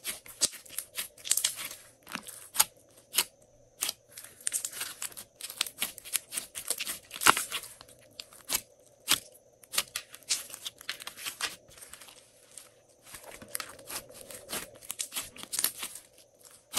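Hands squeezing, folding and stretching a glossy slime, making irregular sharp pops and crackles in quick clusters.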